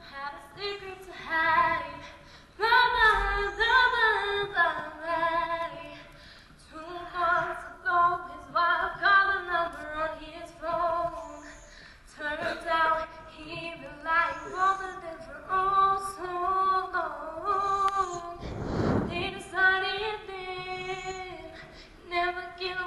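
Solo female voice singing a melody live in an auditorium, with a few longer held notes. About three-quarters of the way through there is a brief noise close to the recorder.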